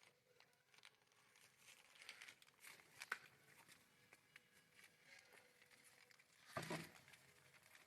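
Near silence: quiet room tone with a few faint clicks and a brief soft rustle about six and a half seconds in.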